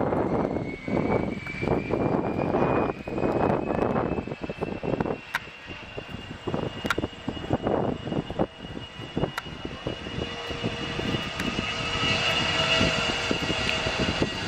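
Airliner's jet engines whining, the whine slowly rising in pitch and growing louder in the second half. Gusts of wind buffet the microphone in the first half.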